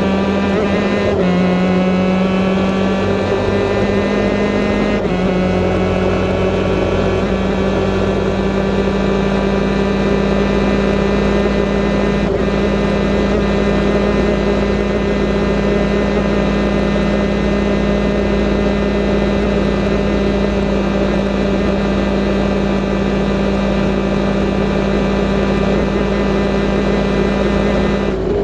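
Stock Honda superkart two-stroke engine running flat out at a near-constant high pitch, easing slightly over the first few seconds with small steps about one and five seconds in.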